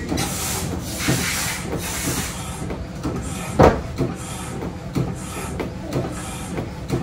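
A load-testing press running as it ramps the load on a load cell toward 250 kN, five times its rated capacity. It gives pulses of hiss about once a second and repeated knocks, with one sharp, loud knock about halfway through.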